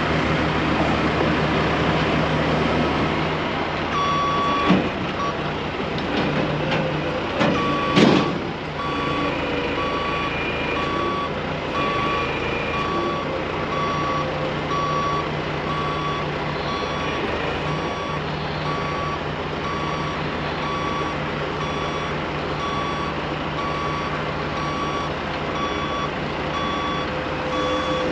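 Gradall telehandler's reverse alarm beeping steadily about once a second, starting a few seconds in, over a steady diesel engine hum. One sharp loud clank about eight seconds in.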